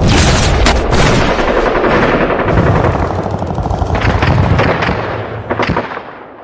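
A heavy gun battle: dense, overlapping automatic gunfire with many shots crowding together. It thins out after about five seconds, with a last few shots, then fades away.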